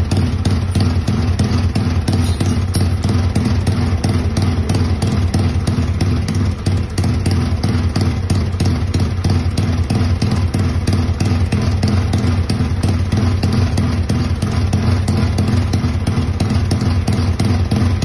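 Custom 'twin Tiger' motorcycle engine idling steadily with a rapid, even firing beat.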